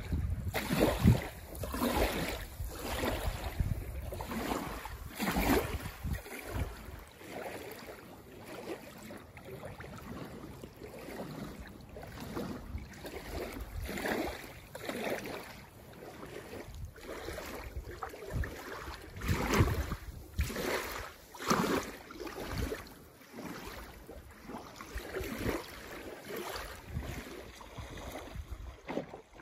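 Lake water lapping and splashing in irregular bursts, with wind blowing.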